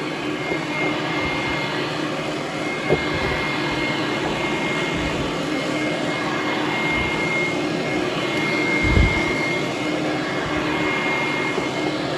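Hoover Conquest direct-air upright vacuum cleaner running steadily while being pushed over carpet, a loud rushing noise with a thin high whine over it. A few short low bumps come about five, seven and nine seconds in.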